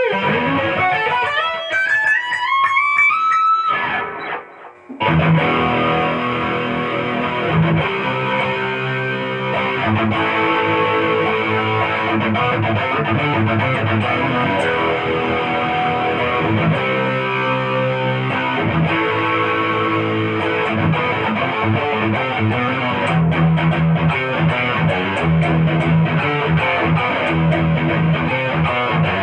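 Vantage electric guitar with humbucker-single-single (HSS) pickups being played: quick rising runs of single notes at first, then after a brief pause about four seconds in, dense distorted chords and riffs.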